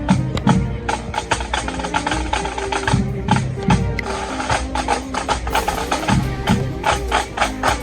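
Pipe band drum corps playing: rapid snare drum strokes and rolls, with bass drum beats every second or two.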